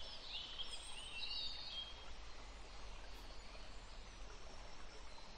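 Faint outdoor ambience with small birds chirping in short quick calls during the first two seconds or so, then only a steady low hiss.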